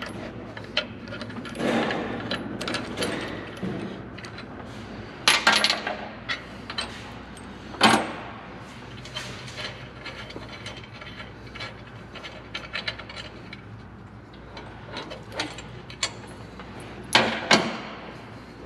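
Steel bolts, nuts and washers clinking and clanking against the heavy steel of a bulldozer's limb-riser mount as it is unbolted by hand. There are scattered light clicks and a few sharper metal clanks, the loudest about five, eight and seventeen seconds in.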